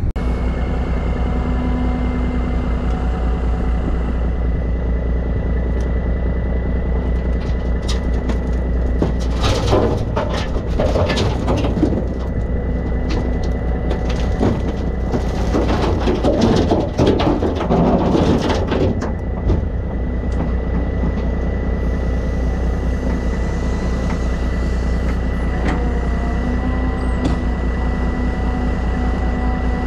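Excavator bucket dumping red dirt and rock into a dump truck bed, the rock clattering and thudding into the bed in two spells a little before and after the middle, over the steady running of heavy diesel engines with a constant high whine.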